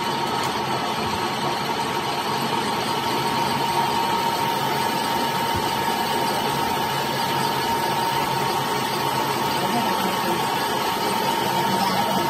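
Metal lathe turning a cylindrical metal compressor jacket, the cutting tool taking a steady cut and peeling off long stringy chips. A steady whine runs through the even machine noise.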